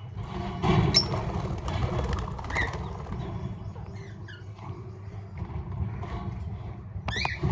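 Flock of small parrots in an aviary giving scattered short, high chirps, with a louder burst of calls near the end, over a steady low rumble.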